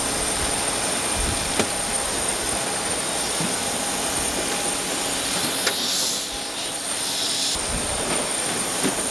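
Jet aircraft turbine noise: a steady rush with a constant high, thin whine running through it. Two light knocks, about one and a half seconds and five and a half seconds in, are footfalls on the metal boarding stairs.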